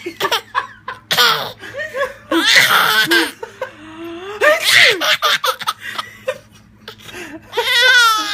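A woman sneezing, with a baby laughing at the sneezes in short high-pitched bursts.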